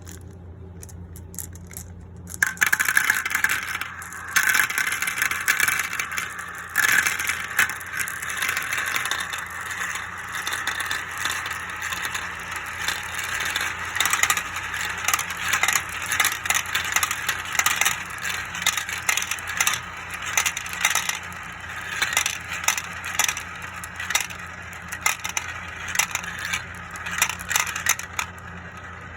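Many marbles rolling and clattering down a marble run, spinning around funnels and clicking against the track and each other. The dense rattling starts abruptly about two seconds in and goes on continuously, over a steady low hum.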